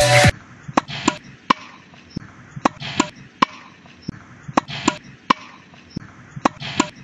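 Tennis ball being hit with a racket and bouncing: about fifteen sharp knocks at uneven intervals, some in quick pairs or triplets. A burst of music cuts off just at the start.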